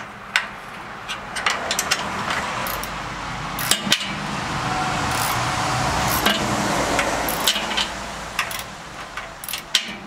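Scattered light metal clicks and clinks of mounting bolts and hardware being worked by hand into the engine mount under a wood chipper's steel frame. In the middle, a passing vehicle's rush swells and fades.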